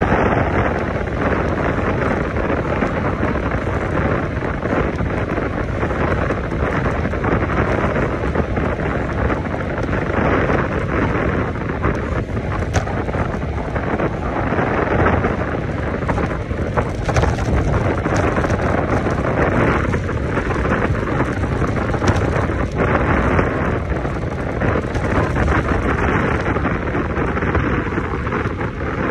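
Wind buffeting the microphone of a phone mounted on a road bike's handlebars during a descent at about 50 km/h: a loud, steady rush of noise strongest in the low end.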